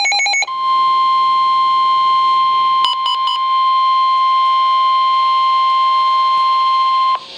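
NOAA Weather Radio emergency alert: a half-second burst of rapid chopped data tones, then the steady 1050 Hz warning alarm tone. The alarm tone is held about six and a half seconds and cuts off abruptly, the signal that an emergency warning message follows. About three seconds in, three quick higher beeps break over the tone.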